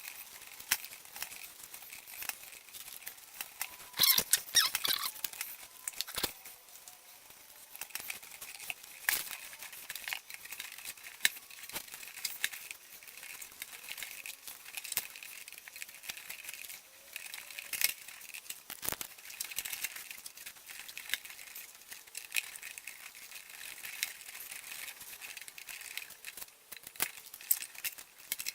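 Titanium exhaust heat wrap being wound around an exhaust pipe by hand: irregular crinkling and rustling with scattered clicks and taps, loudest about four seconds in.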